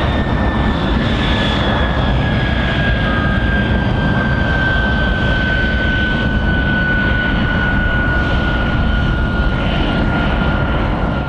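Jet engine running on the ground: a steady rumble with a high whine that slowly falls in pitch.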